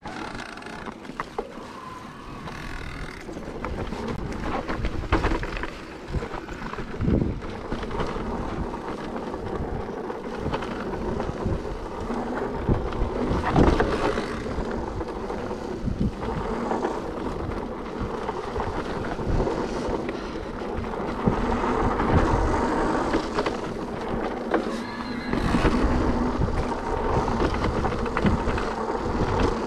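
Trek Powerfly FS electric mountain bike ridden down a dirt trail: steady tyre and riding noise with the pedal-assist motor humming, and the bike rattling and knocking over bumps now and then.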